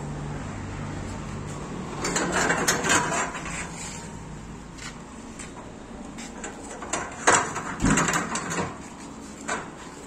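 Manual roller pipe bender being worked by hand: metal clicks, knocks and clanks from its lever, rollers and clamps on the steel pipe, in a burst about two seconds in and a louder one near the end. A low hum fades out in the first two seconds.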